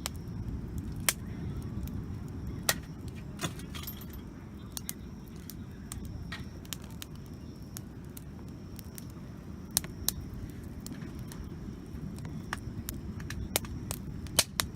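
Wood campfire crackling, with sharp pops from the burning wood every few seconds over a steady low rumble.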